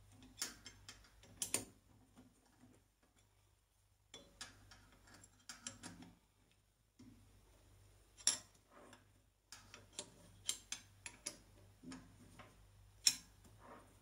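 Scattered sharp metallic clicks and knocks as an ER32 collet chuck is seated on a lathe's cam-lock spindle nose and the cam locks are turned with the key, with a couple of short pauses.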